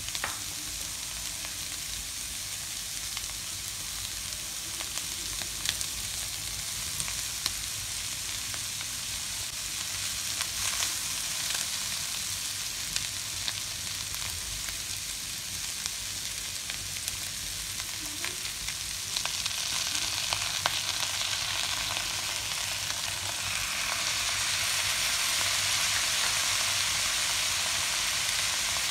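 Chicken and vegetables sizzling steadily in a nonstick wok, with a few sharp clicks of a slotted spatula stirring them. The sizzle gets louder in the last third.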